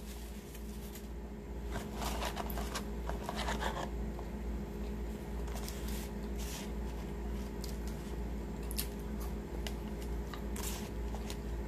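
Fast-food paper wrappers crinkling and rustling as fries are picked out of them, with scattered small crackles and clicks over a steady low hum.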